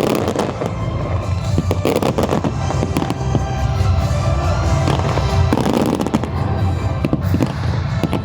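Fireworks bursting and crackling in quick, irregular succession over loud music with a heavy low bass.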